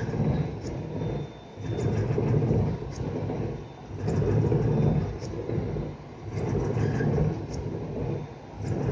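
Running rumble inside the cab of a suburban electric train moving slowly along flooded track. The noise swells and eases in a regular rhythm about every two seconds.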